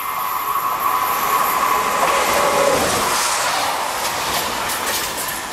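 SNCF Z 24500 double-deck electric multiple unit passing close by through a tight curve, with a steady high wheel squeal from the curved rails. The sound swells to its loudest about two to three seconds in, with a brief falling whine as the train goes past, then rapid clicks of the wheels over the rails as it moves away.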